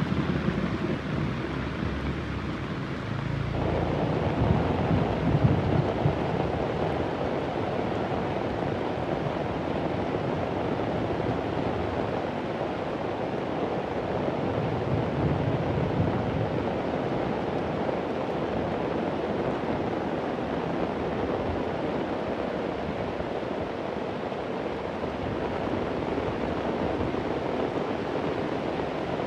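Heavy rain falling steadily, with a low rumble of thunder dying away in the first few seconds.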